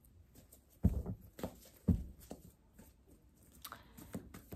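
Handling a tarot deck: two sharp knocks about a second apart, with lighter clicks and rustles of the cards in between.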